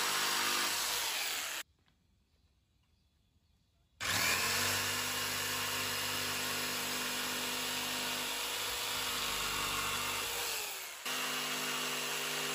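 Electric jigsaw sawing through pallet wood slats, its motor running steadily with the blade chattering in the wood. It cuts out abruptly about two seconds in, then starts again about four seconds in, spinning up to speed and running on.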